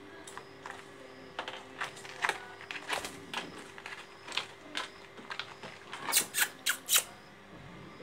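A string of irregular sharp clicks and taps close to the phone's microphone, with a cluster of four louder ones near the end, over a faint steady hum.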